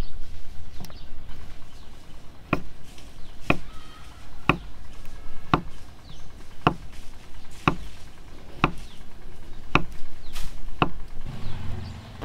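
Large knife chopping through peeled ripe bananas onto a thick wooden chopping block: nine sharp knocks, evenly spaced about once a second.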